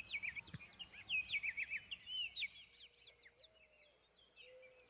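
Small songbirds singing, a busy run of quick chirps and warbles that thins out after about two seconds, with a fast, high trill near the end.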